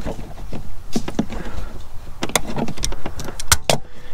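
Channel-lock pliers working a spring hose clamp onto a coolant reservoir hose: a run of irregular sharp clicks and light knocks of tool, clamp and plastic tank.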